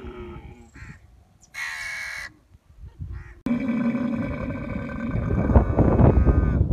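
Dromedary camel bellowing with its mouth open: a long, loud groaning call that starts suddenly about three and a half seconds in and turns louder and rougher near the end. A shorter high-pitched call comes about two seconds in.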